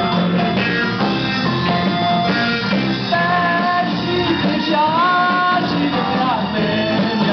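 A man singing a Burmese song into a microphone, backed by a live band of guitars, drum kit and congas.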